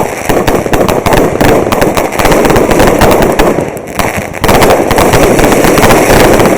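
Fireworks going off: a loud, dense, rapid crackle of many small bangs, easing briefly about two-thirds of the way through, then surging back louder.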